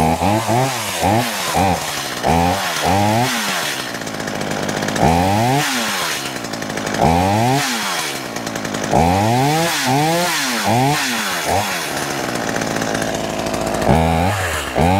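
Two-stroke chainsaw being blipped repeatedly from idle to high revs and back, with quick throttle stabs in the first few seconds, longer revs in the middle and idling between them.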